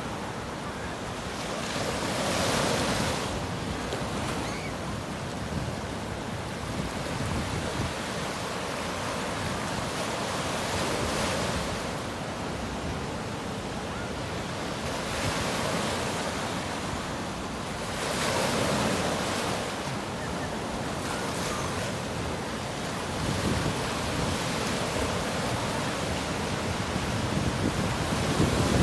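Waves breaking on a beach: a continuous wash of surf that swells louder every several seconds as waves come in, strongest about three seconds in and again past the middle.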